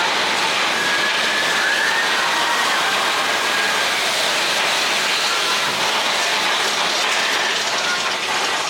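Big Thunder Mountain mine-train roller coaster running along its track: a steady loud rumble of the train, with thin high wheel squeals coming and going.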